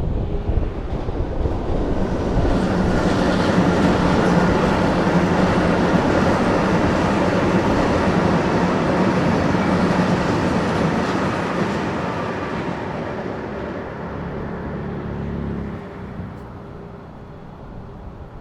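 Ivolga (EG2Tv) electric multiple-unit train going past: wheel and rail noise with steady electric drive tones, building up over the first few seconds, loudest in the middle, then fading away.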